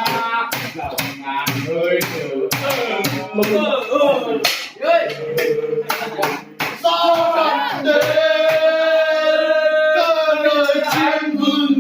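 A voice singing in long, wavering, held notes over a run of sharp percussive beats.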